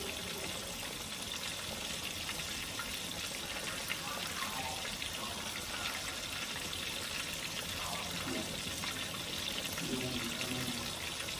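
Flour-dredged snapper fillets deep-frying in hot oil in a cast-iron skillet: a steady sizzle with fine crackling.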